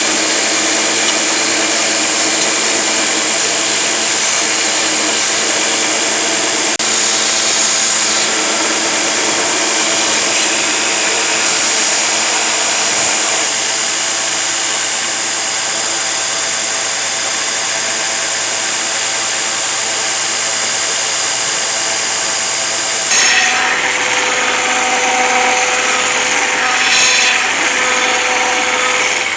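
Electric power tool running steadily, with a sharp change in its sound about 23 seconds in.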